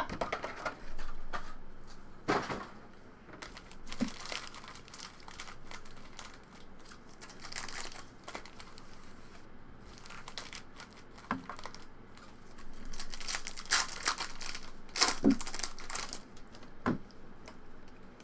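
Foil wrappers of Topps Stadium Club Chrome trading-card packs crinkling as the packs are handled and torn open. The crinkles are irregular and get busier past the middle.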